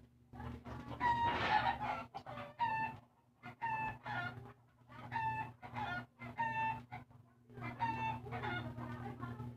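Chickens clucking: a run of short, same-pitched calls, one or two a second with brief pauses, over a steady low hum.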